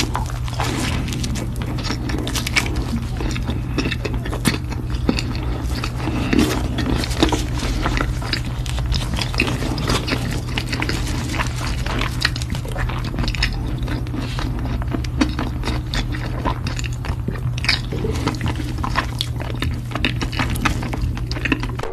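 Close-miked eating: a person biting and chewing food, with many quick, irregular wet clicks and crunches. A steady low hum runs underneath.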